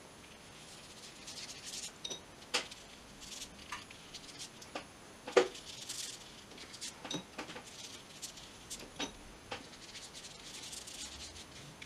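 Paintbrush strokes on paper, soft scratchy brushing with scattered light taps and knocks of the brush.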